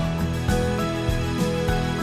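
Instrumental background music: held notes over a regular pulse of new notes about twice a second.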